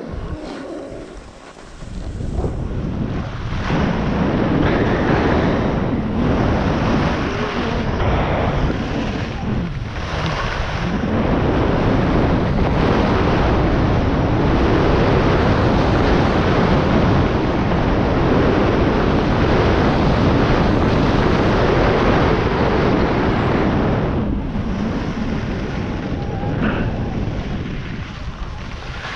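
Wind buffeting a GoPro's microphone as a rider slides at speed down a groomed ski run, with snow hissing underfoot: a loud, steady rush that builds about two seconds in and eases off near the end as the rider slows toward the chairlift.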